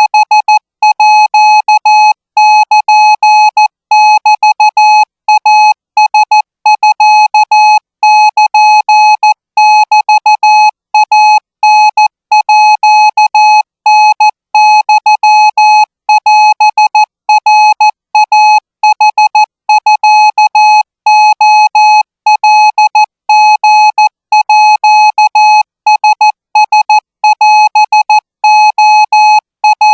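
Morse code practice signal: a single steady beep tone keyed on and off in dots and dashes at 20 words per minute, sending Thai-language Morse.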